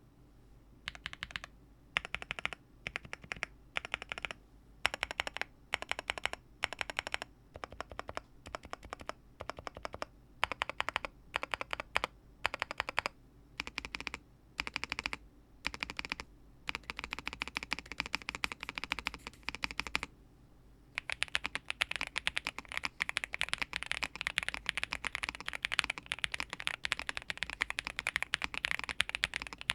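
Mechanical keyboard typing on a NuPhy Gem80 with NuPhy Lemon switches: short bursts of keystrokes with brief pauses between them, then steady fast typing from a little past the halfway point, with one short pause.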